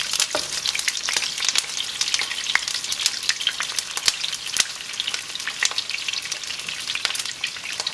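Whole jalapeños searing in hot oil in a sauté pan: a steady sizzle with frequent sharp pops and crackles as a wooden spoon turns them.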